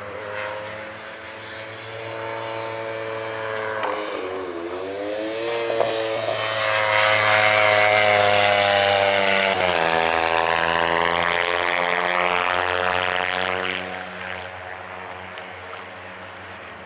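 Kawasaki 300-class racing motorcycle's small parallel-twin engine going past at race speed. Its pitch dips about four seconds in, then climbs as it gets louder, drops sharply on an upshift near ten seconds, climbs again and fades away.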